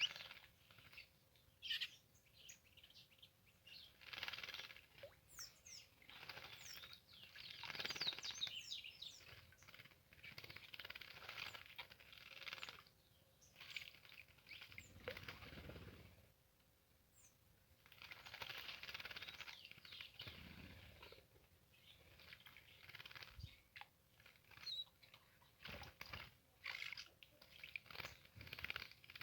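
Small birds bathing, splashing and fluttering their wings in shallow water in repeated bursts of a second or two, with a few short chirps between them.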